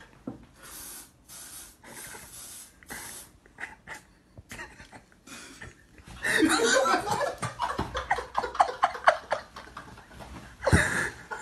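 Suppressed laughter and panting breaths from several people trying to stay quiet, with a few short hisses in the first three seconds. From about six seconds in, the stifled giggling and snorting grow louder and more rapid, and a sudden loud thump comes near the end.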